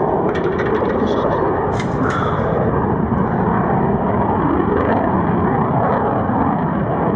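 Saab J35J Draken's Volvo RM6C turbojet heard in flight during a display pass: a loud, steady rumble, with a few sharp crackles in the first two seconds.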